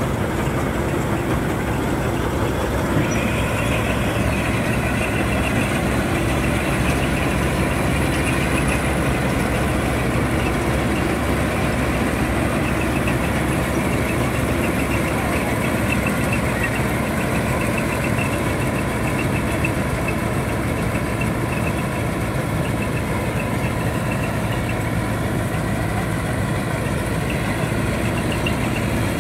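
Mahindra Arjun Novo 605 DI tractor's diesel engine driving a Balkar combine harvester, running steadily under load as it works through a rice paddy.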